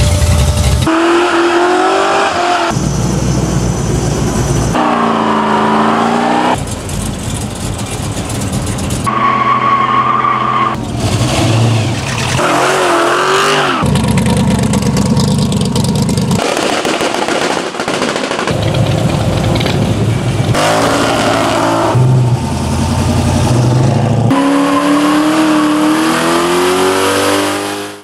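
A rapid string of V8 muscle car engines revving and accelerating, the sound changing abruptly every second or two. Several revs swing up and down in pitch, and near the end one engine climbs steadily as it accelerates.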